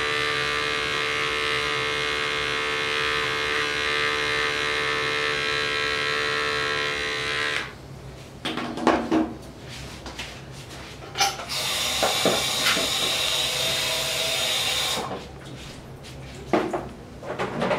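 Electric animal hair clippers running steadily while clipping fur from a dog's face around an abscess, switched off after about seven and a half seconds. A few knocks follow in the pause, then the clippers run again for about four seconds and stop.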